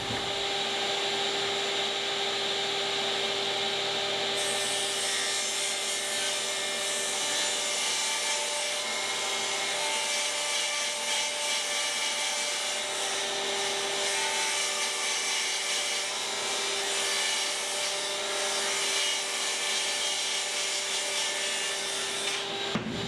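Table saw ripping a sheet of 3/4-inch MDF lengthwise. There is a steady motor hum, and about four seconds in the sound takes on a bright hiss as the blade enters the sheet. It cuts off just before the end.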